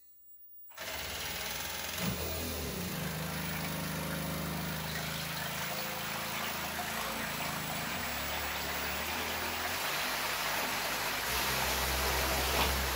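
Milwaukee cordless drill motor, run straight from the armature with its gearbox removed, spinning a 3D-printed jet-drive impeller underwater: a steady motor hum with hissing, churning water as the pump shoots a jet across the tub. It starts about a second in and grows louder near the end.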